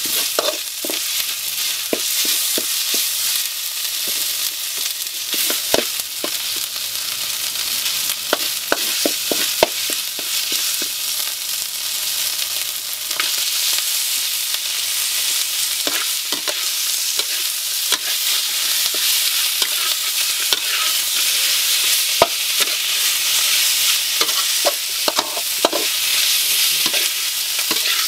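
Spice paste sizzling in an aluminium wok, with a metal ladle scraping and clicking against the pan as it is stirred. About halfway through, raw frog meat is tipped in and the sizzling grows louder under the continued stirring.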